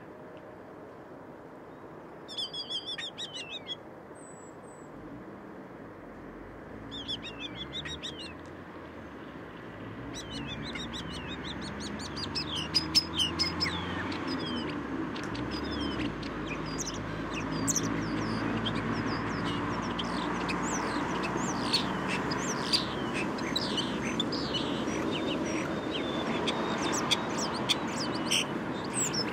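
Common starling singing: short chattering phrases at first, then from about ten seconds in a continuous run of clicks, rattles and sliding whistles. Underneath, a steady rumble of city noise that grows louder.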